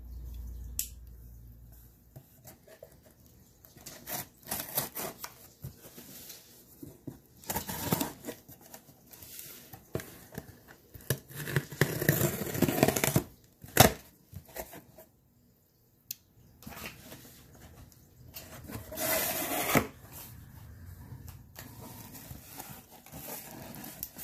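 A pocket knife slitting the paper packing tape on a cardboard box, then cardboard flaps being pulled open and rubbing: irregular scraping and tearing in several bouts, the longest about halfway through, with one sharp click shortly after.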